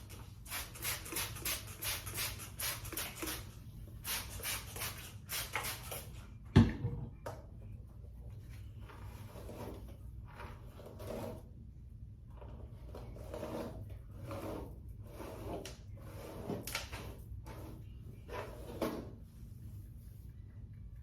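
Runs of short, quickly repeated strokes from hands and tools working a wet wig's hair, broken by one loud knock about six and a half seconds in.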